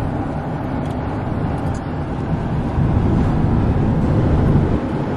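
Steady road noise inside a moving van's cabin, tyres and engine on the highway, swelling louder about three seconds in for a second or two.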